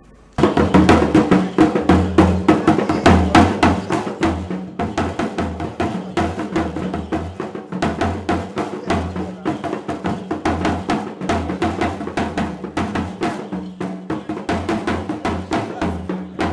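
Percussion-driven music: fast, dense drum strokes over a deep pulsing bass, starting abruptly about half a second in.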